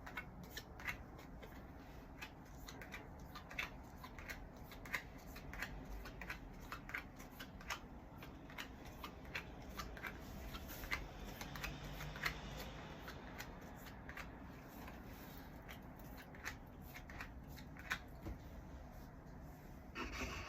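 Hands handling a package's packaging and contents during an unboxing: scattered light rustles and small clicks, with a louder clatter of handling just at the end.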